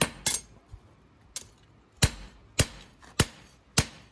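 Hand hammer striking a red-hot steel knife blade on an anvil block during hand forging. Each blow is sharp and ringing. There are two quick blows at the start, a lighter tap, and then steady blows about every 0.6 seconds from about two seconds in.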